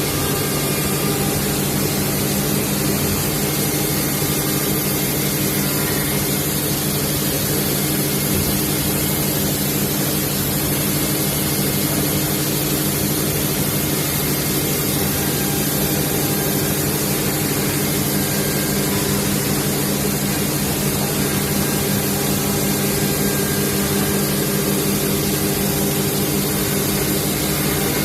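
Five-axis CNC wood router running and cutting a wooden workpiece: a steady cutting hiss over a constant machine hum.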